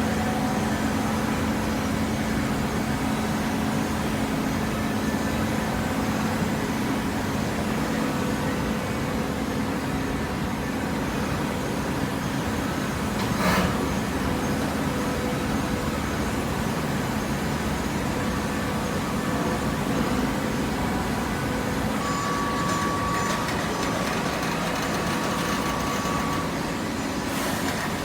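Steady machine noise with a low hum, and a single sharp knock about halfway through.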